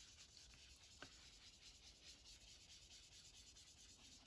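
Faint, soft rubbing of a sponge-tipped applicator across paper, working pan pastel into the background, with a small tick about a second in.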